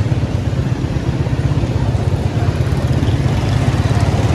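A small motorcycle engine running steadily at low revs close by, over light street traffic noise.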